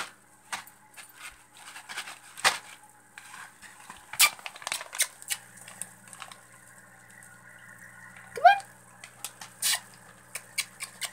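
Scattered clicks and knocks of objects being handled around an aquarium. A low steady hum comes in about halfway, and a short rising squeak sounds about three quarters through.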